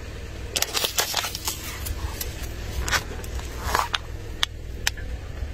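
Plastic spray bottle packed with water beads being crushed under a slowly rolling car tyre: a run of crackles and sharp pops as the plastic crunches and splits, over a low steady rumble from the car.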